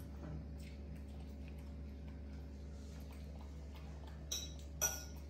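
Light clicks and ticks of eating utensils against dishes over a steady low hum, with two sharper clinks a little before the end.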